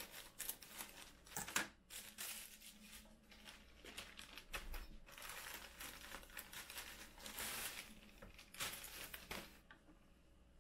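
Clear plastic bag crinkling and rustling in irregular bursts as it is pulled open and handled, stopping near the end.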